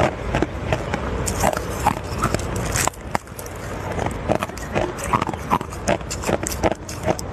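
Clear ice cubes being bitten and chewed close to the microphone: loud, irregular crunching with many sharp cracks as the ice breaks between the teeth.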